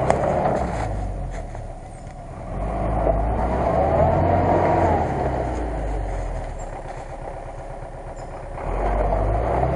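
GAZ-66 truck's V8 petrol engine working hard as the truck pulls through deep mud. It revs up about two and a half seconds in with a rising, then falling whine, eases off, and revs up again near the end.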